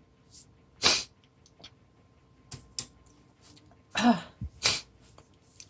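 A woman sneezing twice: a short, sharp sneeze about a second in, then a voiced wind-up and a second sneeze near the end. These are head-cold sneezes brought on with sneezing powder.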